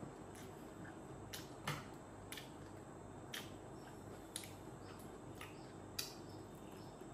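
Faint sounds of a person eating a meal by hand: about half a dozen short, sharp clicks and smacks from the mouth and food on the plate, over a steady low room hum.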